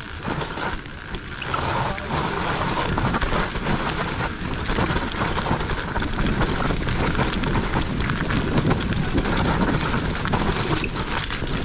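Mountain bike riding down a rough dirt trail: wind rushing over the microphone with the rumble and rattle of tyres and bike over the ground, growing louder about a second and a half in.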